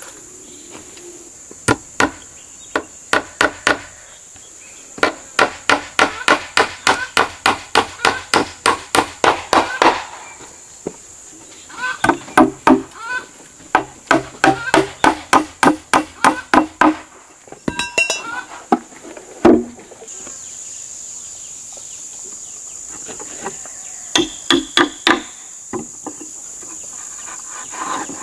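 Hammer driving nails into wooden planks: runs of quick, sharp strikes, about three a second, broken by pauses. Insects drone steadily underneath, louder in the second half.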